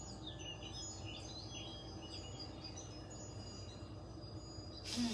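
Faint bird chirps over a low steady room hum; near the end, a deep breath sets in as a loud airy hiss.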